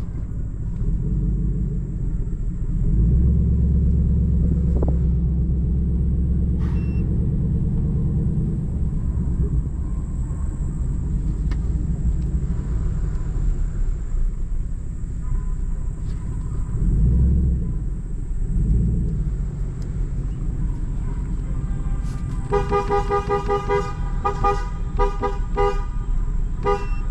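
Truck engine running with a low rumble that swells twice, then from about 22 seconds in a vehicle horn is tooted in a rapid series of short blasts.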